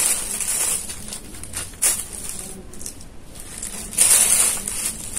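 Clear plastic bag rustling and crinkling as a hand rummages through the resistors inside it, in several short bursts, the loudest about four seconds in.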